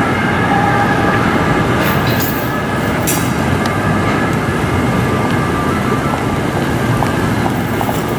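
Steady city street traffic noise: a continuous rumble of engines and tyres on cobbles, with a few faint steady tones fading out in the first second and a couple of brief sharp clicks.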